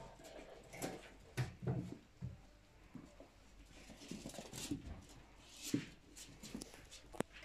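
Seven-week-old wire-haired dachshund puppies at play on a wooden floor: scattered short puppy sounds among scrabbling and light knocks, with a sharp click near the end.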